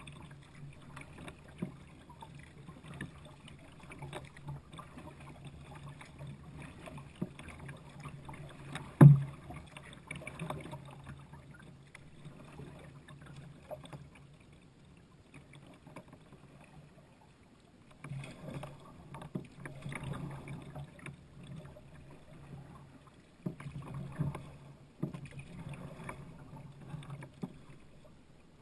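Kayak paddling on calm water: irregular paddle strokes splashing and dripping, busier in two stretches in the second half. About nine seconds in there is one sharp knock, louder than anything else.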